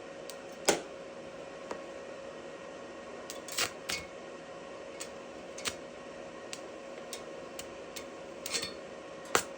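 Cheap Chinese welder humming steadily, with irregular sharp pops and snaps as the arc strikes briefly and breaks off, about eight over several seconds.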